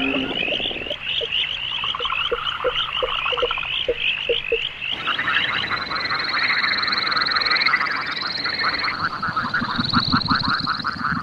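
Layered frog calls: a chorus of rapid, repeated chirping calls over a row of short low croaks, cut abruptly about five seconds in to a denser chorus of fast pulsed trills, one of them rising in pitch in steps.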